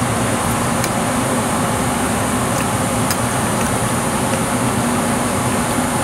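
Steady mechanical hum with a constant hiss, like a running machine, with a few faint ticks over it.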